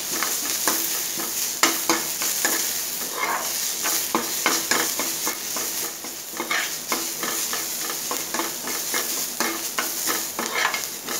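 Chopped onions and spices frying in mustard oil in a nonstick pan, with a steady sizzle. A steel spoon stirs and scrapes them, making frequent irregular clicks against the pan.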